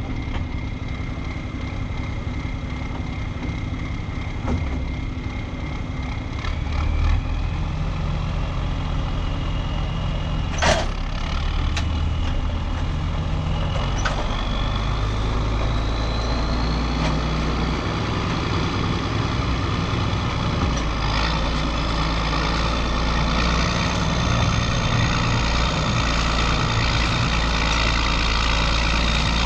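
Heavy diesel farm machinery engine running steadily under load. A whine rises slowly in pitch over about ten seconds and then holds, and there is a single sharp click about eleven seconds in.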